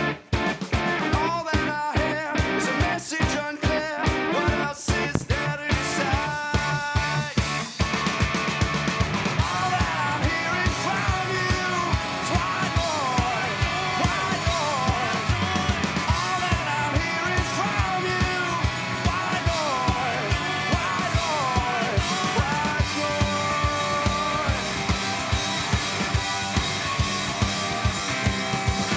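Three-piece punk rock band playing live on electric guitar, double bass and drums, with singing. For about the first eight seconds it plays sharp stop-start hits, then settles into full, steady playing with bending pitched lines over it.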